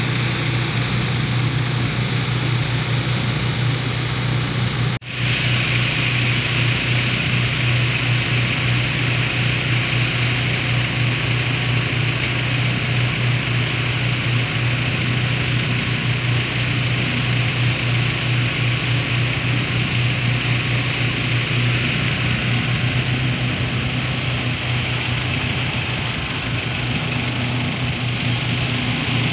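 Tractor engine running steadily at a constant speed, a deep even drone with a steady hiss above it. The sound drops out for a split second about five seconds in.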